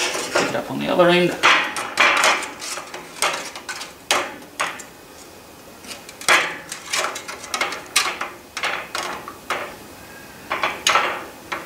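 Hot steel parts and tongs clinking and knocking against a steel can as the freshly heat-blued parts are lowered in to quench, smoke coming off them. The knocks are irregular, several a second at times, with short pauses between.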